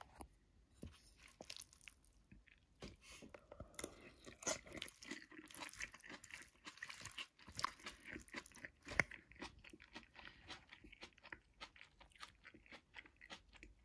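Faint scraping, clicking and crunching as a utensil tosses and mixes sprouted chickpeas, vegetables and greens in a pan. The clicks are densest through the middle, with one sharper tap a little past the middle, then thin to a run of lighter ticks.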